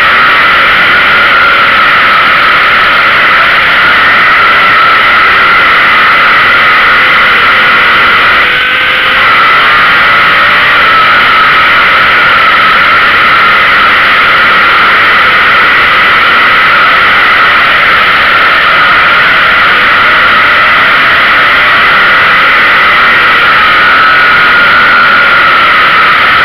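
Street stock race car's engine running hard at high revs, loud and steady, heard from on board the car. The engine note dips briefly about nine seconds in, then picks back up.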